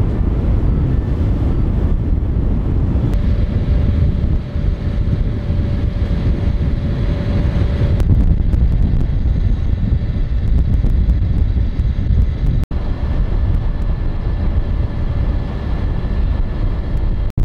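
Wind rumbling on the microphone aboard a sailing yacht under way, a loud steady low roar with a faint steady tone in parts. The sound changes abruptly about 3, 8 and 13 seconds in.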